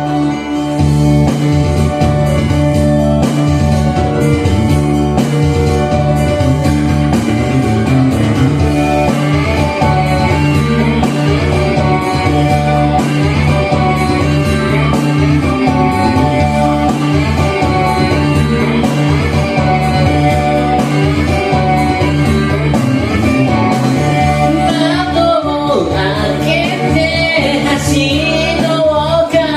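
Recorded pop-rock song playing: a full band intro with steady bass and drums. A wavering lead melody comes in near the end.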